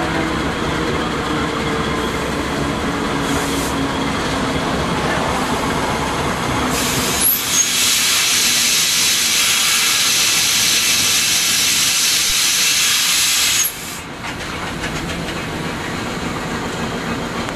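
Indonesian diesel-electric locomotive running at full traction, a heavy rumble with a few slowly falling tones. About seven seconds in, a loud, steady hiss takes over for about six seconds and cuts off suddenly, leaving the quieter rumble.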